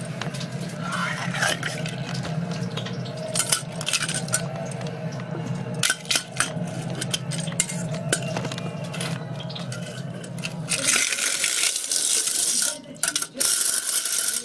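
Hand-cranked rotary egg beater clattering and clinking against a metal bowl as its beaters churn eggs mixed with eggshell. About eleven seconds in, the rattle turns louder and harsher, a continuous scraping whirr broken by one short pause.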